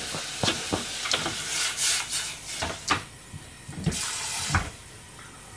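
A plastic cutting board taps and scrapes against an aluminium pot as food is pushed off it into the broth, followed by two bursts of hissing, sloshing liquid from the simmering pot and a couple of dull knocks as the pot is moved on the gas hob.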